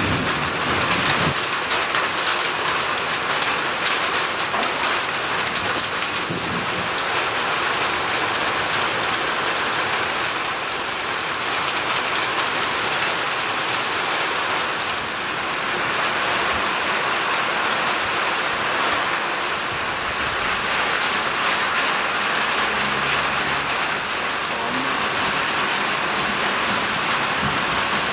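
Heavy rain pouring down in a thunderstorm, a steady, even downpour.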